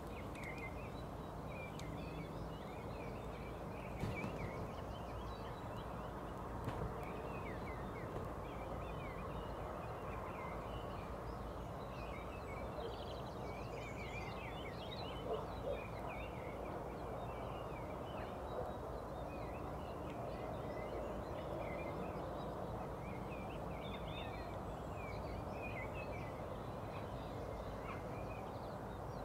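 Small songbirds chirping and singing continuously, many short quick notes overlapping, over a steady low background rumble. A few brief soft knocks stand out now and then.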